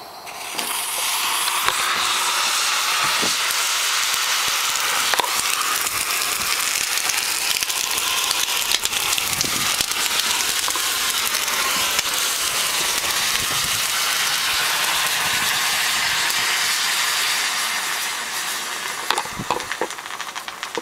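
Homemade saltpetre-and-sugar smoke bomb burning in a tin can: a loud, steady hiss of the burning mix that starts within the first second, with scattered crackles. The hiss dies down near the end, leaving a few pops.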